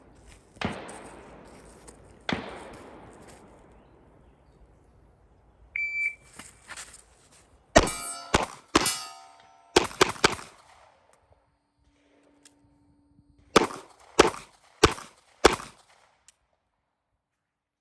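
Two loud, echoing gunshots near the start, then a short shot-timer beep. Then a rapid string of 9mm Glock 19 pistol shots, a pause of about three seconds, and four more evenly spaced shots. A malfunction slowed the string down.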